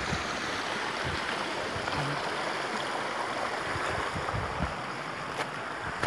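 Shallow mountain stream running over rocks: a steady rush of water, with a faint click or two near the end.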